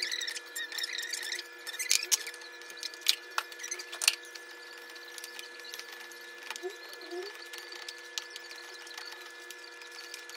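Plastic spoon scraping and tapping against a cooking pot and a plastic bowl as cooked rice is scooped and mixed with crumbled boiled egg. A few sharp knocks in the first four seconds, then softer stirring. A faint steady hum runs underneath.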